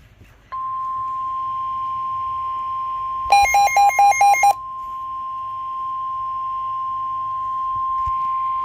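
NOAA Weather Radio 1050 Hz warning alarm tone: a loud steady single tone that starts about half a second in, announcing the next tornado warning. About three seconds in, a quick run of about six beeps alternating between two pitches sounds over it for a little over a second.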